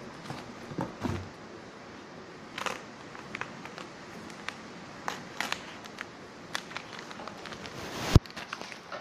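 Plastic stretch wrap and bubble-wrap packaging crackling and rustling under handling hands, with scattered small clicks and one sharp knock near the end.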